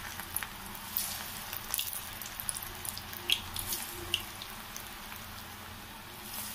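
Chekodilu frying in hot oil in a steel kadai: a steady sizzle of bubbling oil, with scattered sharp pops and crackles.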